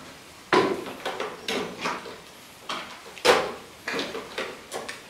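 A string of about ten sharp knocks and clatters at uneven spacing, each ringing briefly, the loudest about half a second in and about three seconds in.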